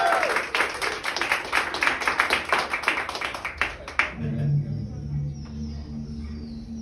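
Small audience clapping after a song, cutting off abruptly about four seconds in, then a low steady drone of background music.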